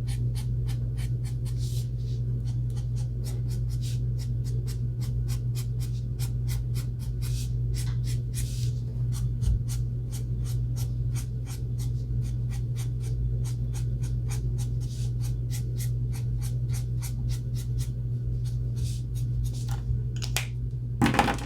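Alcohol marker tip scratching across paper in quick short strokes, about four a second, shading with a dark blue-grey (BG9), over a steady low hum.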